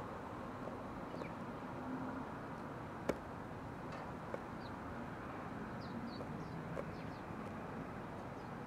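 Faint, short high chirps of small birds scattered over a steady low background hum, with one sharp tap about three seconds in.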